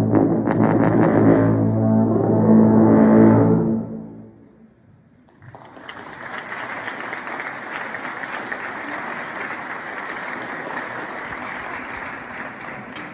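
Tuba and euphonium ensemble holding a loud closing chord that swells and then cuts off about four seconds in. After a short pause, applause follows.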